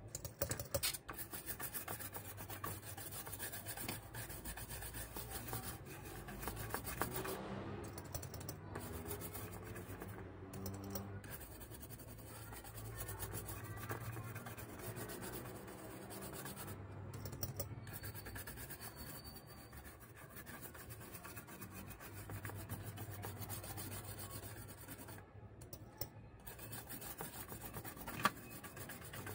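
Small brush scrubbing a graphics card's circuit board, a continuous scratchy rubbing as corrosion from water damage is cleaned off the components. One sharp tap near the end.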